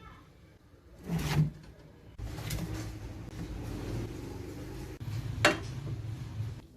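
Kitchen handling noises as cookware is moved: a clunk about a second in, then a stretch of low rumbling clatter with a sharp knock about five and a half seconds in.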